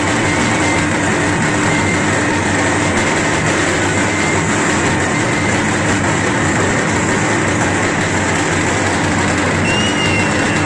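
Steady, loud din of a packed crowd, an even wall of noise with no clear beat or rhythm.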